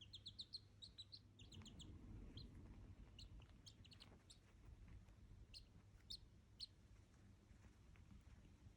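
Duckling peeping faintly: a quick run of short, high peeps at the start, then single peeps every so often.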